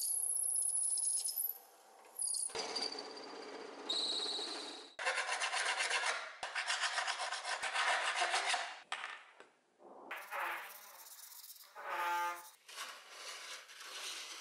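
Drill press boring through a steel knife blank with a high whine, then a hand file scraping across the steel in rapid, even strokes; the sounds cut abruptly from one to the next.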